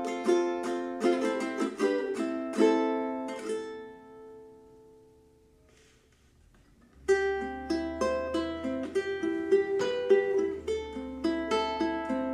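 Solid-mahogany concert ukulele with fluorocarbon strings being played, a string of picked notes and chords. About four seconds in, a chord is left to ring and fade to near silence, and the playing starts again abruptly about seven seconds in.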